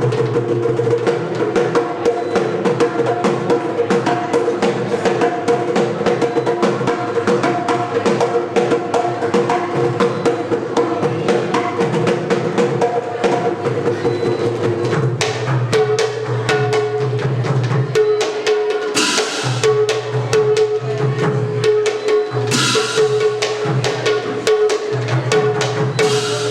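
Drum-led ensemble music: drums beaten in a fast, dense rhythm under a sustained melodic line. Two loud cymbal clashes come in the second half.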